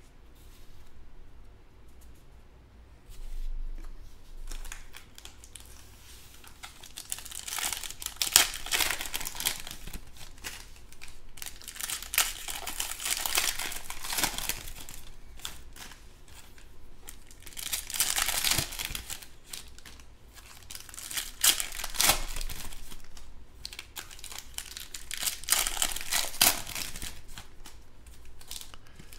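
Foil trading-card packs being torn open and crinkled by hand, in repeated bursts of crackling wrapper noise that begin several seconds in. Before that there are only softer handling sounds.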